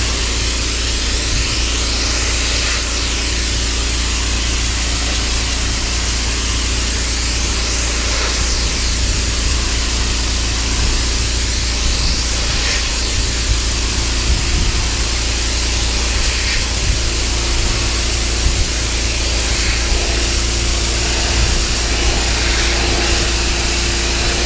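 Pressure washer running steadily, its wand jet held close to weathered wood deck boards, blasting out mold and mildew with a constant loud hiss over the machine's low hum.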